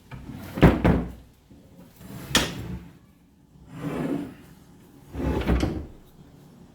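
Heavy cast-iron drill press parts being handled and turned over on a workbench: four clunks with short scrapes, about a second and a half apart.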